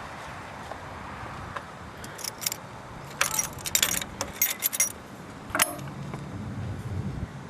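A bunch of keys jangling in quick, uneven clicks, then one sharp click a little after halfway, followed by a low hum near the end.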